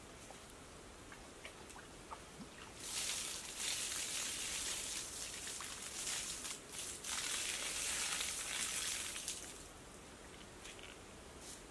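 Water poured from a pot onto a grass-turf roof, splashing and pattering on the sod for about six seconds, with a brief break about seven seconds in.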